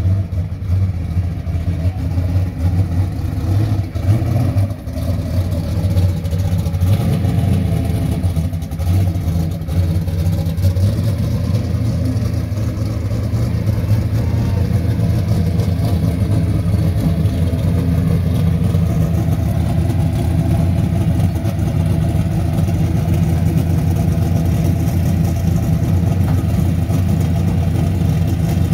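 Red first-generation Camaro drag car's race engine idling steadily.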